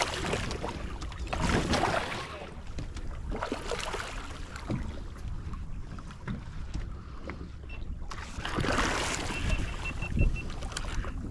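Wind buffeting the microphone and water splashing as a hooked mahi-mahi thrashes at the surface beside the boat, with two louder stretches of splashing. Near the end, a faint rapid beeping.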